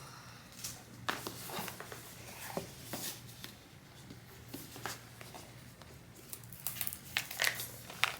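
Packaging being opened by hand: scattered rustles, crinkles and light taps, with a few sharper ones near the end.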